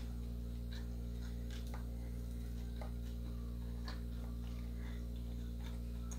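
A man eating: faint, scattered soft clicks of chewing and of fingers picking fries from a bowl, over a steady low hum.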